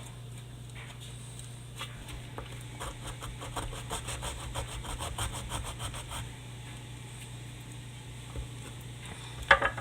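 A blade sawing and scraping into the cardboard tube of a firework mortar, a run of quick rasping strokes lasting about four seconds, then a single sharp knock near the end.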